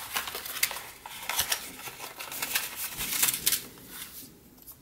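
Hand-unpacking of small accessories: packaging rustling and crinkling, with quick clicks and scrapes, as the round metal wall plate and its mounting tape come out of the box. The rustling dies away near the end.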